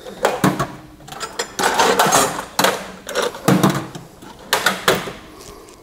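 Metal hand tools clattering in a drawer of a steel rolling tool chest as they are rummaged through, in several separate bursts of rattling.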